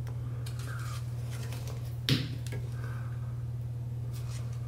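PTFE thread tape being pulled off its plastic spool and wrapped around a chrome shower mount's outlet threads: faint crinkling rustles and small clicks, with one sharp click about two seconds in. A steady low hum runs underneath.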